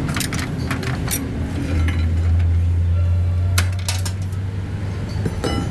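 Metal clinking and clanking, a handful of sharp strikes near the start, a cluster about three and a half seconds in and another near the end, over a steady low hum that swells for a while in the middle.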